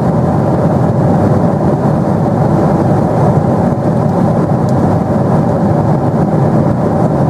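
Steady cabin noise of a Boeing 777-300 in cruise flight, engines and air rushing along the fuselage, heard from a window seat.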